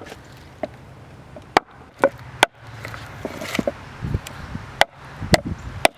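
Adze chopping into an ambrosia maple bowl blank, roughing out the hollow: a string of sharp chops at an uneven pace, about one a second.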